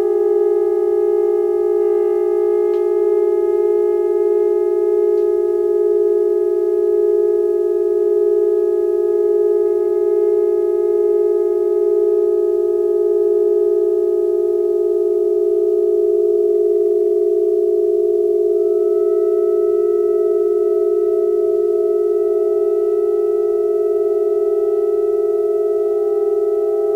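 Saxophone quartet and electronics holding a sustained just-intonation drone chord of steady long tones, the lowest note loudest. Past the middle, one upper note drops out and higher notes enter, shifting the chord.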